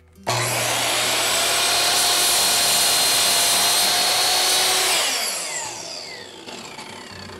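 Skil MS6305-00 10-inch sliding compound miter saw, with a 15-amp motor, starting suddenly and running at full speed while the blade cuts through a wooden board. About five seconds in the trigger is let go and the blade winds down with a falling whine.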